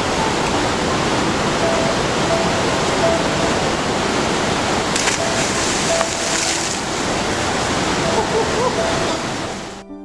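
Steady rush of whitewater rapids, cutting off suddenly near the end.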